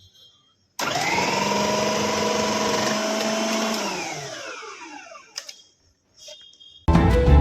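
Preethi Zodiac 750-watt mixer grinder motor switched on about a second in, running at a steady high speed for a few seconds, then switched off and winding down with a falling whine. A couple of light clicks follow, then music starts near the end.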